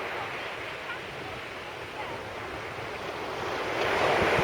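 Sea waves washing onto the beach, with wind buffeting the microphone; a wave surges louder about four seconds in.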